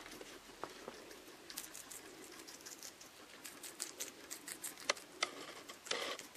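Guinea pigs' feet pattering and scrabbling in quick, uneven small clicks as they move about, with two sharper clicks about five seconds in.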